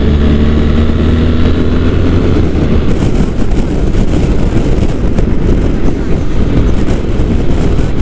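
BMW R 1300 GS boxer-twin engine pulling steadily at cruising speed, with heavy wind rush over the bike-mounted microphone. A steady engine drone is plain for the first two to three seconds, after which wind and road noise dominate.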